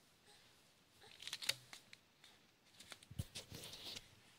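Paper packaging rustling and crinkling as it is handled, in scattered bursts, with a soft bump about three seconds in.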